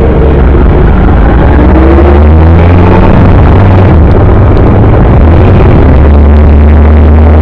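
Motorbike riding noise: a loud, steady rumble of engine and wind on the microphone, with the engine's pitch sliding up and down a little.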